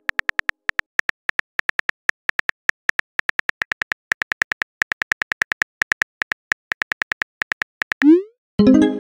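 Phone-keyboard typing clicks from a texting-story app, quick and even at about five a second. Near the end a short rising whoosh marks the message being sent, followed by a brief chime.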